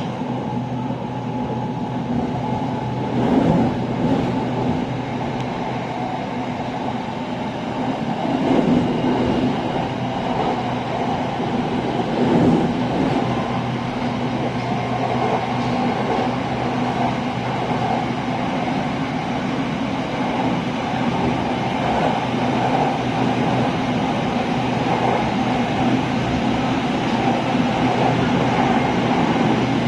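Bangkok Red Line electric commuter train running, heard from inside the carriage: a steady rumble of wheels on track under a low motor hum, with a few louder knocks in the first half.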